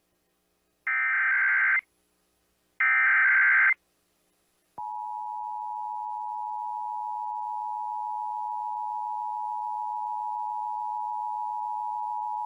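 Emergency Alert System required monthly test: the last two of three digital SAME header data bursts, each about a second long with a second's gap between them. About five seconds in, the steady two-tone EAS attention signal begins, one continuous tone held without change.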